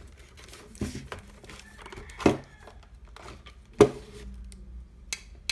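Three sharp knocks about a second and a half apart on the body of a gumball machine bank, each leaving a short hollow ring, with lighter clicks and packaging rustle between them. The knocks sound hollow, like a plastic bottle rather than cast metal.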